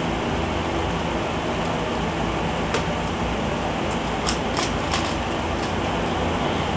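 Steady background hum and hiss, with a few short sharp clicks: one near the middle and a quick cluster about four to five seconds in, from an Eastsheen 5x5 puzzle cube being handled, set down and its plastic layers turned as a speed solve begins.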